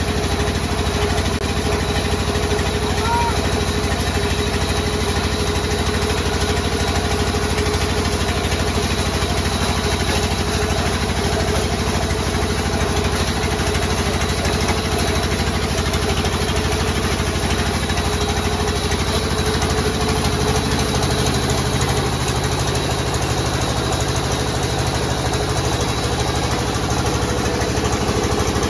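Large sawmill band saw running steadily, a constant machine hum with no breaks.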